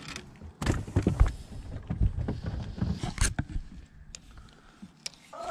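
Irregular knocks and low thumps on a small fishing boat, several in quick succession over the first few seconds, then quieter bumps.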